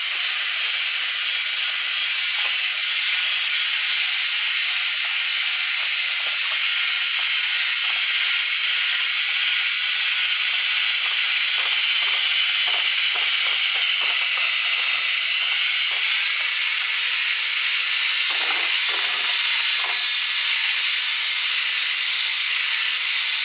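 Drill spinning a soft pad with 500-grit sandpaper across a plastic truck headlamp lens: a steady, unbroken sanding hiss.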